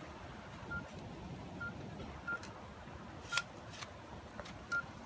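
Mobile phone keypad beeps as a number is dialed: five short beeps at one pitch, spaced irregularly, some with a faint key tap.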